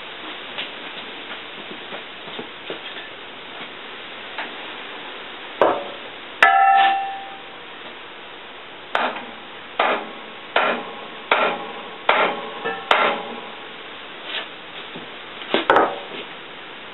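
Hammer blows on steel parts. About six and a half seconds in there is a single strike that rings on, then a run of about six blows, each under a second apart, and a few more knocks near the end.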